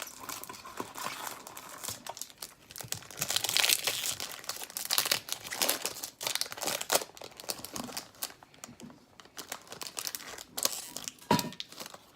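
A foil hockey card pack wrapper being torn open and crinkled by hand, an irregular crackle with uneven louder bursts and a short sharp one near the end.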